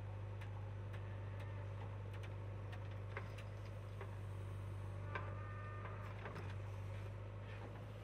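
JCB 3DX backhoe loader's diesel engine running with a faint steady low hum while it digs and loads, with scattered light clicks and ticks and a short high whine just past five seconds in.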